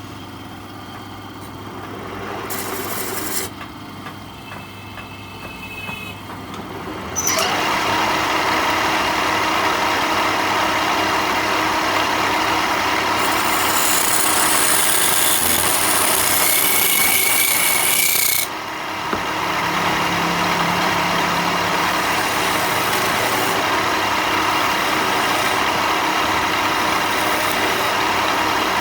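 A power tool working wood: quieter handling for several seconds, then the tool runs steadily against the wood from about seven seconds in, with a harsher, brighter stretch in the middle.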